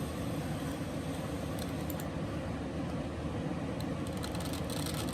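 Fireworks fountain spraying with a steady hiss and faint crackles, heard played back from a demo video over a steady low hum.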